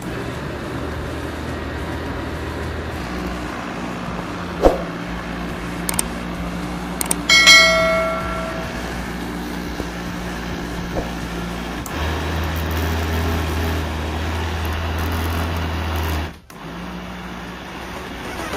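500 W Noon East electric blender motor running steadily while blending a green smoothie. Its hum deepens for a few seconds about two-thirds of the way through, then cuts out briefly near the end. A sharp click about five seconds in and a bell-like ding a few seconds later sit over it.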